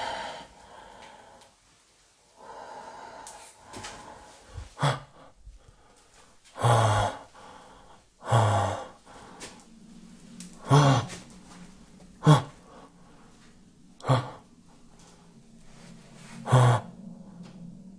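A person's short, loud breaths, about seven of them, spaced a second or two apart, over a faint steady hum.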